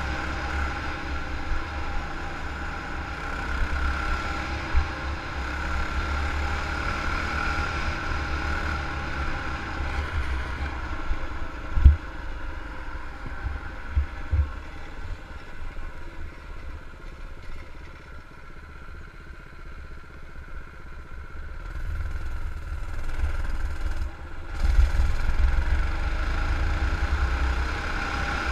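Doodle Bug mini bike's small single-cylinder engine running steadily under way, with wind rumbling on the microphone. A few sharp knocks come near the middle, the engine sound drops for several seconds after that, then rises again toward the end.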